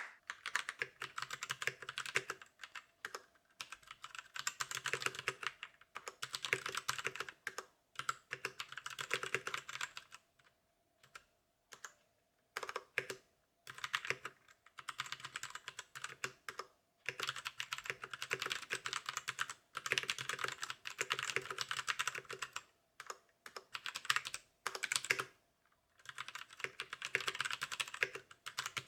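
Typing on a Royal Kludge RK61 mechanical keyboard: rapid runs of key clacks broken by short pauses, the longest about two seconds, some ten seconds in.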